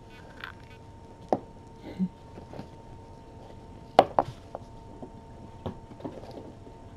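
Scattered light knocks and taps, the loudest about four seconds in, over a faint steady electrical hum.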